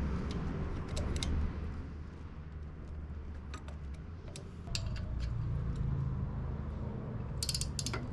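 Light metallic clicks and clinks of hand tools and engine parts being handled, over a steady low hum, with a quick run of clicks near the end.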